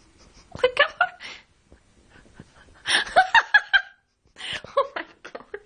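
A person laughing in three short bouts of quick chuckles, the first about half a second in, the next around three seconds in, the last near the end.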